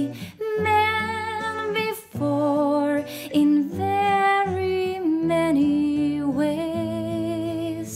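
A woman singing a slow ballad to her own acoustic guitar accompaniment, with long held notes and vibrato.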